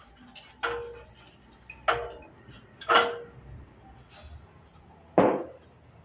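Sharp metal-on-metal clanks, four in a few seconds, from steel parts of a stopped vertical band sawmill being handled. The first three each leave a short ringing note, and the last, about five seconds in, is the heaviest.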